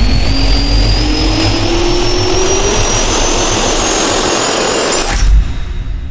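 Jet-turbine sound effect for a logo intro: a loud roar with a whine rising steadily in pitch, ending in a deep hit about five seconds in and then fading away.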